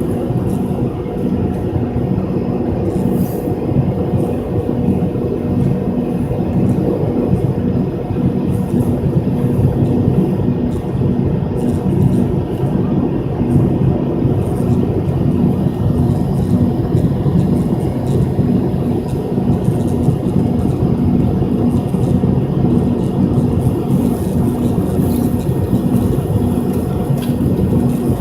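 Steady engine drone inside the cabin of an MD-83 airliner, heard from a seat near its rear-mounted Pratt & Whitney JT8D turbofans: a low, even rumble with a steady hum at a couple of fixed pitches.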